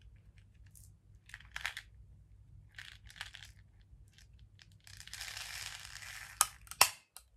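Thin plastic yogurt pot crinkling and crackling as it is flexed and its corner compartment of biscuit crumble is tipped into the yogurt, with a longer rustling pour about five seconds in. It ends with two sharp clicks.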